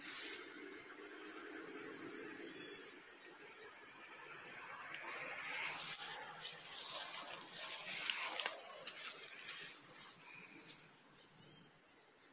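Steady high-pitched hiss of the forest's background sound, with a few soft rustles and ticks near the middle.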